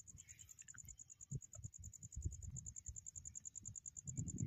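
A cricket chirping: a faint, high, rapid and evenly pulsed note that keeps a steady rhythm, with soft low knocks and rustles underneath.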